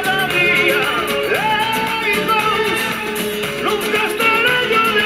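A song playing: a singing voice over instrumental accompaniment.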